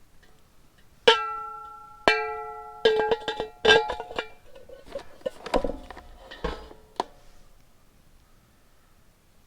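Metal lid of a portable gas fire bowl ringing like a bell as it is knocked and handled while its handle is fitted: four sharp clangs in the first four seconds, each dying away, then lighter clicks and knocks.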